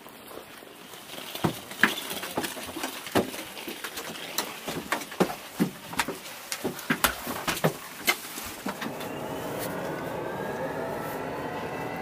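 Footsteps clumping up the metal rear airstair of a Yakovlev Yak-40, a quick, irregular series of sharp knocks. Near the end they give way to a steady cabin hum with a slowly rising whine.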